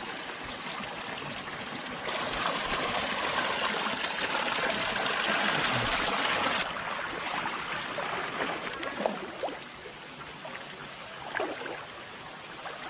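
Rushing water of a spring-fed stream and waterfall, a steady hiss. It jumps louder about two seconds in and drops back suddenly around halfway through.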